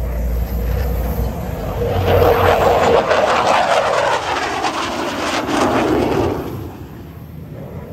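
Display jet aircraft flying past: the engine roar swells to its loudest about two to four seconds in, then fades away over the last second or two.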